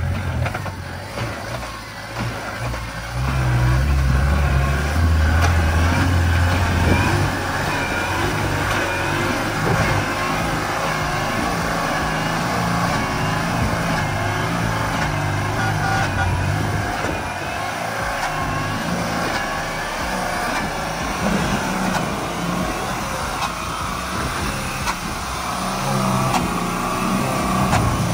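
Mahindra Thar's engine revving hard under load in low-range four-wheel drive as the stuck vehicle tries to drive itself out of deep mud. It is loudest for a few seconds, starting about four seconds in, then runs on steadily.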